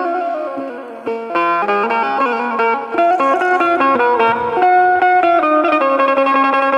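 Banjo being played for a tone check: a melody of clear, ringing single notes that change several times a second, some held longer.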